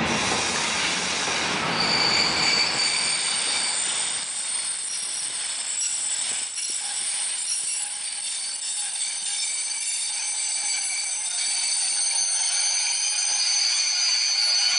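Freight wagons rolling past on a curve, their steel wheels squealing in several steady high tones over the running noise. The low rumble of the wheels fades after about four seconds while the squeal goes on.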